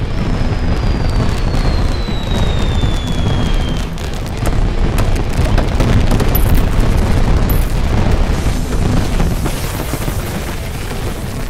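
A barrage of consumer fireworks going off at once: continuous crackling, popping and booms of shells and fountains firing in quick succession. A high whistle falls slowly in pitch through the first few seconds.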